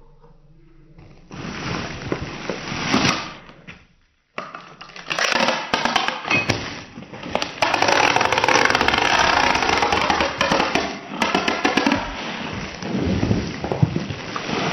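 Rustling and crinkling of packaging material being handled, with many sharp clicks and crackles. The sound cuts out briefly about four seconds in, and a denser, steady crinkling noise runs through the middle.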